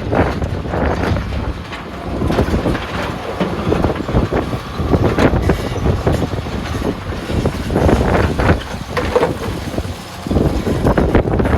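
Heavy wheel loader working, its diesel engine running loud and uneven with a dense low rumble.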